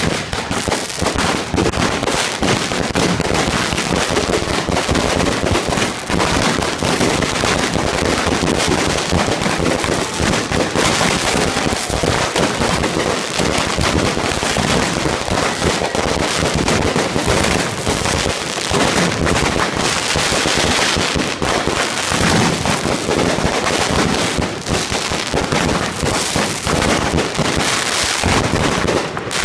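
Fireworks grand finale: many fireworks going off at once in a dense, unbroken run of rapid bangs and crackles.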